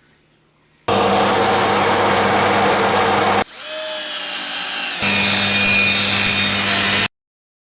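Table saw running and cutting wood, a steady motor hum under the noise of the blade, in short spliced clips that change abruptly at about one, three and a half and five seconds in; the sound cuts off suddenly near the end.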